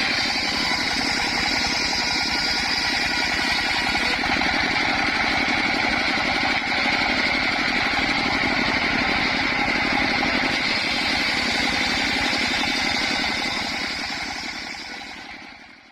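Engine-driven circular saw machine (mesin serkel) running steadily: a rapid engine rumble under a steady whine. The sound fades away over the last couple of seconds.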